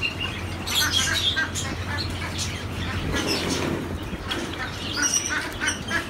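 Java sparrows chirping in a cage: many short, high notes in quick succession from several birds, over a steady low hum.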